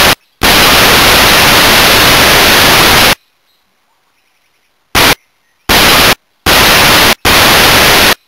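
Loud static hiss in the Scoutguard SG 520 trail camera's audio, switching on and off abruptly: a brief burst, one lasting nearly three seconds, then four shorter bursts, with quiet gaps between.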